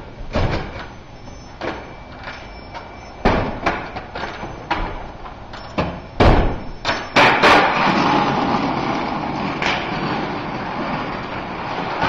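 Glass door and a wooden furniture dolly knocking and clattering as someone carries the dolly inside. Then the dolly's casters roll across a tile floor for several seconds, ending in a thud as the rider falls off.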